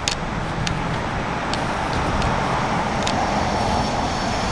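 Road traffic on a multi-lane city street: a steady noise of tyres and engines that swells as vehicles pass through the middle and eases near the end, with a few sharp clicks over it.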